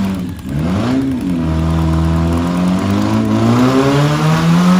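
Four-cylinder demolition derby car engine revving hard: the pitch swoops up and back down about a second in, then holds a steady high rev that climbs slightly near the end.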